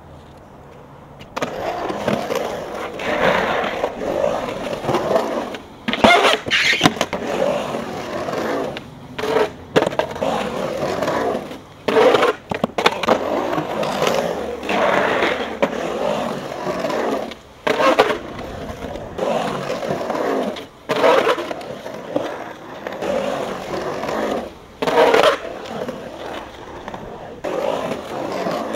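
Skateboard wheels rolling and carving on the concrete of a skate bowl, swelling and fading as the rider rides the walls, with sharp clacks. It breaks off abruptly several times between clips.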